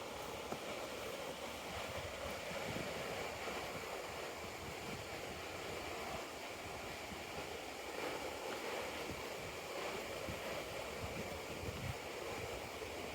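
Steady rush of river water flowing through a rocky gorge.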